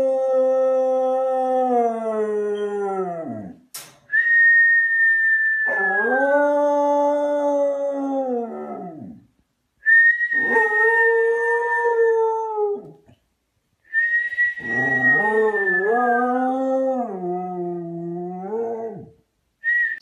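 A Samoyed howling: four long howls with short breaths between them, each dropping in pitch as it fades, the last three opening on a high note before sliding down.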